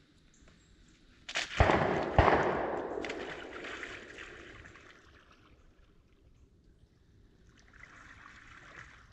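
Two shotgun shots about half a second apart, a little under two seconds in, with their echo dying away over the next few seconds.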